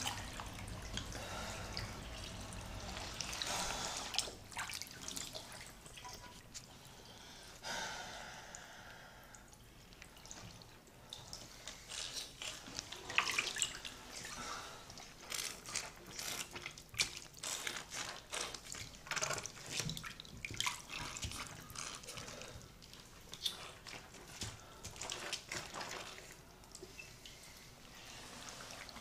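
Water dripping and splashing in a bathtub as a person shifts about in soaked clothing: irregular drips and small splashes.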